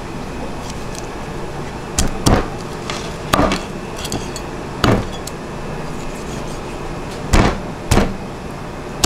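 Heavy cleaver chopping a mullet crosswise into steaks on a round wooden chopping block: about six sharp chops at uneven intervals, starting about two seconds in, over steady background noise.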